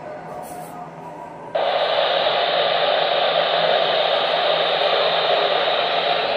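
Radio static: a steady hiss from a radio receiver that switches on abruptly about a second and a half in.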